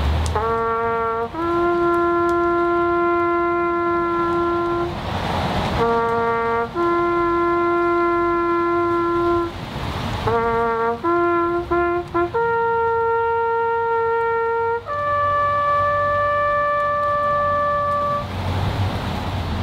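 A lone brass horn plays a slow ceremonial call: short phrases of two or three notes alternate with long held notes, and it ends on two long high notes that fade out near the end.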